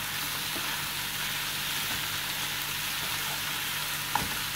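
Pav bhaji vegetables and spices sizzling in butter in a frying pan while a wooden spatula stirs them, a steady hiss with one light tap about four seconds in.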